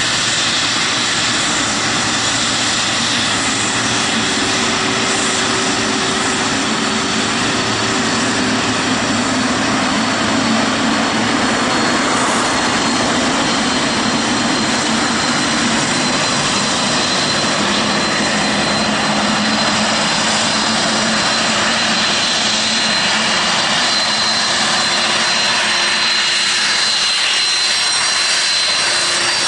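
Jet engines of taxiing airliners, an Air France Boeing 777-300ER and then a Boeing 747-400, running at taxi power: a steady rushing noise with a high whine that grows stronger in the second half.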